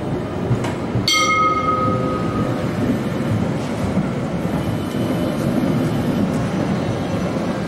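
Alstom TFS tram rolling past close by with a steady rumble. About a second in, a tram's warning bell strikes once, with a clear ringing tone that dies away over about a second and a half.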